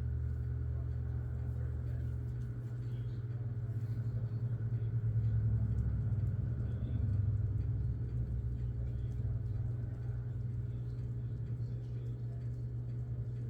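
Sierra Turbo II ceiling fan's K55-type motor running on low speed: a steady low hum that swells slightly about halfway through.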